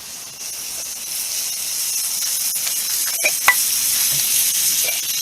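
Food sizzling as it fries in a mess kit over a fire, a steady hiss that swells about a second in. A couple of short clicks come about three seconds in.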